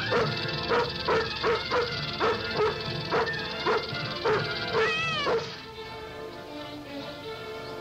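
Rough collie barking rapidly, about two barks a second, ending in a high rising-and-falling yelp about five seconds in, over background music that carries on alone afterwards.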